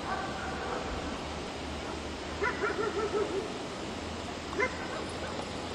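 Dog barking: a quick run of about six short barks a little over two seconds in, then a single bark a little over a second later.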